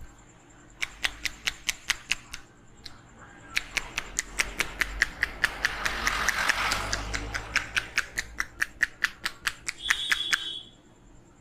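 Rapid rhythmic slaps of a hand percussion head massage, about five sharp strikes a second: a short run, then a longer one that stops shortly before the end, with a hiss swelling underneath in the middle.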